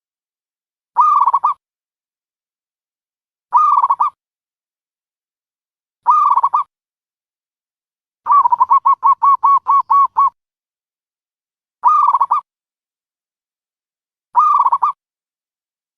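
Dove calling: short coos repeated about every two and a half seconds, with a rapid run of about ten clipped notes in the middle.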